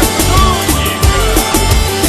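Live band music, an instrumental passage without vocals: a steady drum beat under sustained guitar or keyboard lines with short gliding notes.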